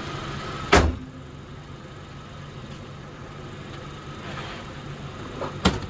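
Lincoln Town Car's 4.6-litre V8 idling steadily, running on its newly replaced alternator, with two sharp knocks, one about a second in and one near the end.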